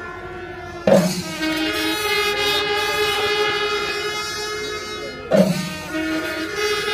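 Traditional Kerala temple festival ensemble playing: several wind instruments hold steady notes together, with two loud drum strikes about four seconds apart.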